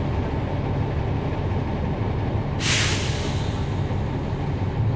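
NABI 40-SFW transit bus's Cummins ISL9 diesel engine running steadily, heard from on board, with a short sharp hiss of air from the air brake system a little past halfway that fades away quickly.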